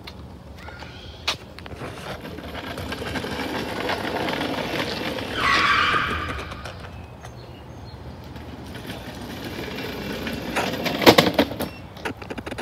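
Hoverboard go-kart rolling over asphalt, the wheel noise swelling as it passes and comes back. A skidding scrape of about a second midway as it turns, and a few sharp knocks near the end.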